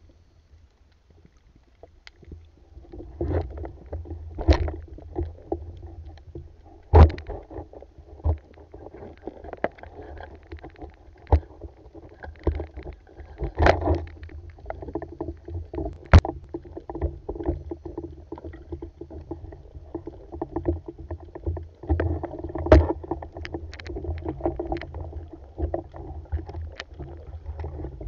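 Underwater sound through an action camera's waterproof housing: a muffled, steady water rumble that starts about two seconds in, with many small clicks and several sharp knocks from the speargun and the diver's gear being handled against the housing and the reef.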